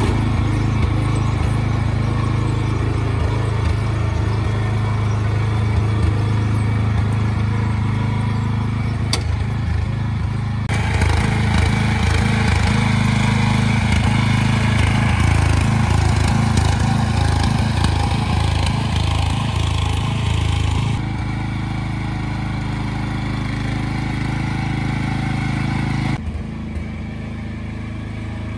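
Small petrol engine of a Yamabiko tracked forest work carrier running steadily under the load of logs it is hauling. The engine note shifts abruptly a few times and grows fainter near the end as the carrier moves away.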